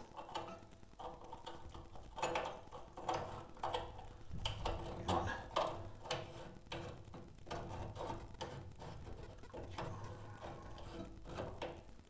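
Small irregular metallic clicks and scrapes of hands handling a new boiler circulation pump and working its pipe connections into place by hand.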